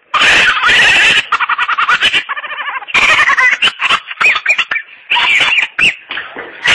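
A young man's loud, high-pitched shrieks and cackling in several bursts, with a fast stuttering run of cackles about a second in, mixed with laughter.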